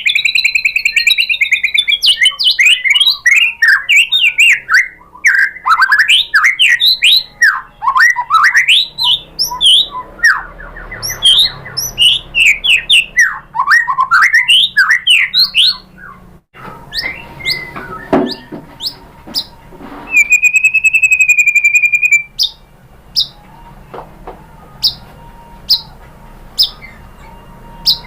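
White-rumped shama singing: a fast run of varied whistled, rattling phrases, then after a short lull one long steady whistle, followed by short sharp chips about once a second.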